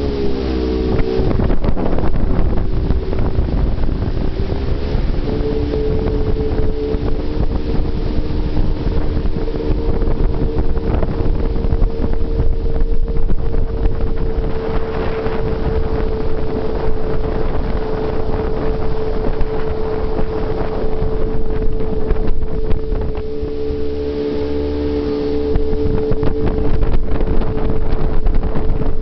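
Jet boat running at speed: a steady engine and jet-pump whine over a heavy rumble, with wind buffeting the microphone. The pitch drops about a second in, then climbs back a few seconds later as the throttle comes back on.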